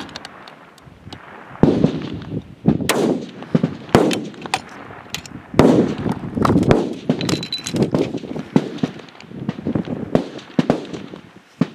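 Target-rifle shots from an F-Class firing line: many sharp cracks at irregular intervals, some only a fraction of a second apart, each followed by a rolling echo.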